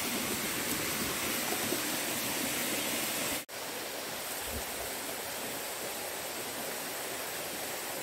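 Rushing water of a rocky stream, a steady hiss that drops out for an instant about three and a half seconds in.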